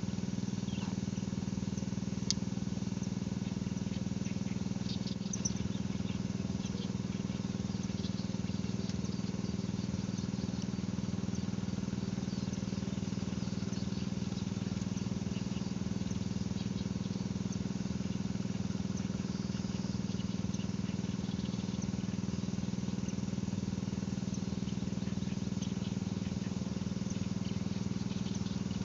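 Steady outdoor riverside ambience: a constant low drone with faint high chirps scattered through it and two light clicks a few seconds in.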